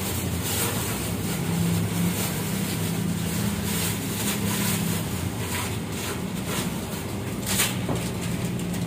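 Gas stove burner running under a wok of chicken soup: a steady low hum and rush, with a few faint clicks near the end.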